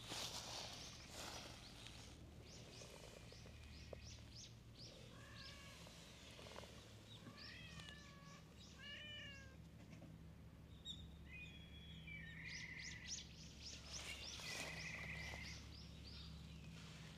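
Stray cat meowing faintly a few times, short calls that rise and fall in pitch about halfway through; rapid high chirps come before and after.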